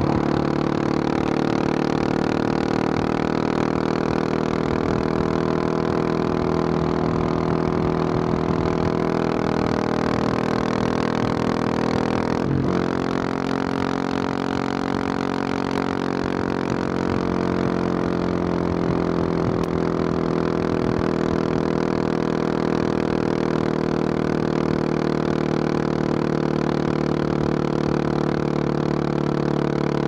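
Husqvarna 701 Supermoto's single-cylinder engine through a Wings aftermarket exhaust, running under steady throttle while riding. The note breaks briefly about twelve seconds in, then settles and holds steady again.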